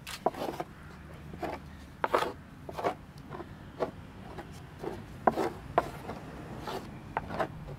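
Hands mixing rye flour and water in a wooden dough trough, giving irregular short knocks and scrapes on the wood, two or three a second.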